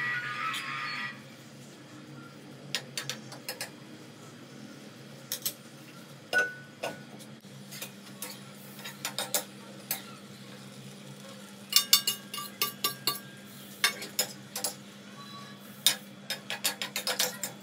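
Steel spoon stirring cabbage in a metal kadhai, scraping and clinking against the pan with scattered sharp clinks. The clinks come thickest around the middle and again near the end.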